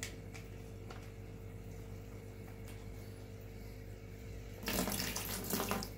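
Water from a plastic fish-shipping bag poured through a hand net into a plastic bucket. It splashes for about a second near the end, over a steady low hum.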